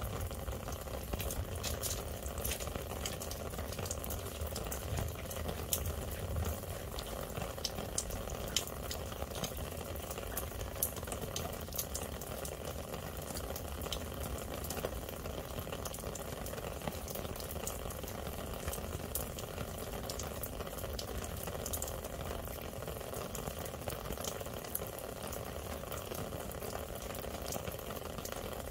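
Outdoor air-conditioning condenser running steadily after a new capacitor and hard start kit were fitted: an even whooshing hum with scattered faint ticks.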